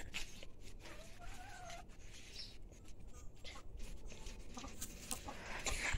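A chicken gives a soft, drawn-out wavering call about a second in, among faint scattered clicks and scuffs.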